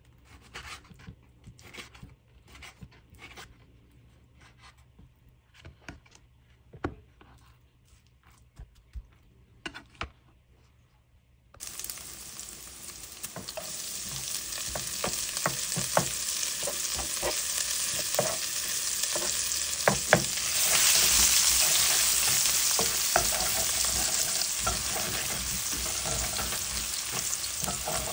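A kitchen knife cutting raw pork on a wooden cutting board, a few soft cuts. Then, suddenly, diced pork and minced garlic sizzling steadily in a hot frying pan, with a wooden spatula knocking and scraping as it stirs; the sizzle grows louder about two-thirds of the way through.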